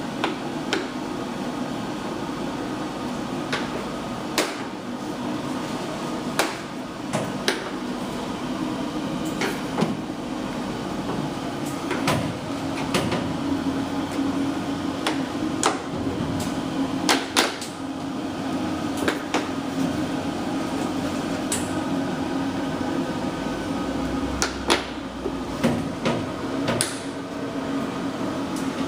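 Scattered, irregular clicks and knocks of installation work, parts and tools being handled, over a steady low hum.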